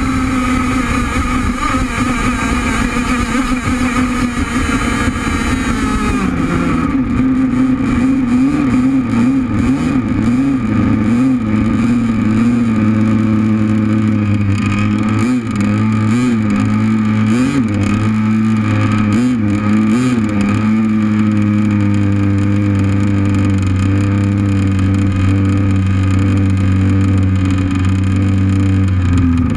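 Enforcer Stingray RC hydroplane's gas engine running at high speed with a high note. About six seconds in it drops off, then wavers up and down at low throttle as the boat comes in. In the last third it settles into a steady low idle.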